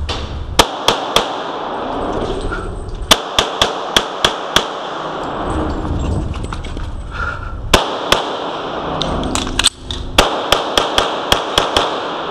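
Glock 35 pistol firing .40 S&W rounds in fast strings, shots about a third of a second apart, in several groups separated by a few seconds while the shooter moves between positions. The shots echo off the walls of an indoor range.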